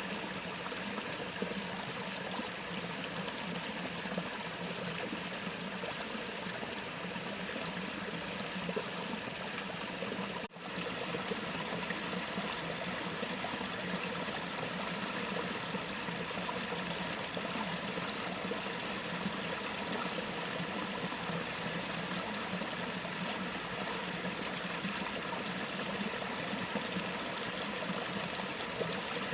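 A stream flowing steadily, with a momentary dropout in the sound about ten seconds in.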